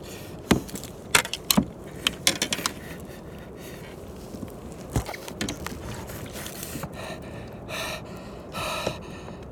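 Several sharp knocks and clatters against a kayak as a big muskie is handled alongside, bunched in the first three seconds with another about five seconds in. Hard, gasping breaths follow near the end.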